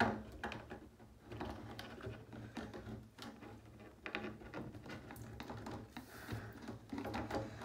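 Thin plastic container being squeezed and handled in the hands, giving faint, irregular crackles and clicks.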